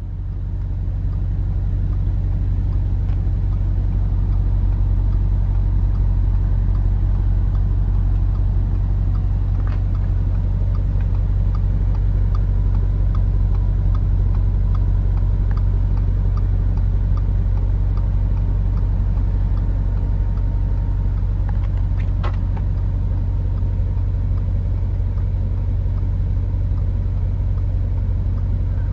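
Audi RS5's 4.2-litre V8 idling with a steady low rumble.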